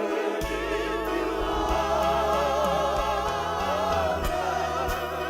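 Slow gospel worship song sung by a group of voices, holding long notes with a wavering vibrato over a steady low accompaniment.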